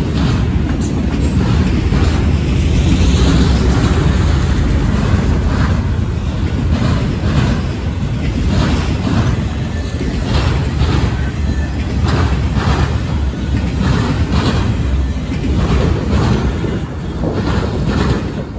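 Freight train of autorack cars rolling past, steel wheels clacking over rail joints in a repeating run over a steady low rumble. The last car goes by near the end and the noise starts to fall away.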